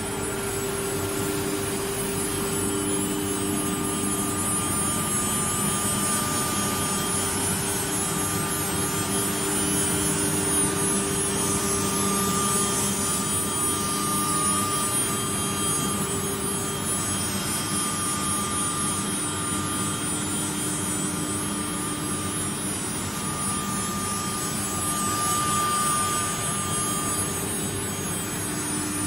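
CNC router running steadily: the spindle's whine over a continuous machine hiss, with several thin steady tones that fade in and out as the machine works.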